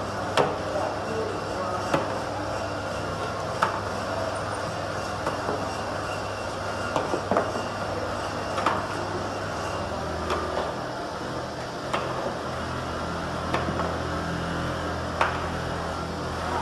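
Automatic flip-cap assembly machine running: a steady motor hum with a sharp click about every second and a half as it cycles. The low hum shifts in pitch about ten seconds in.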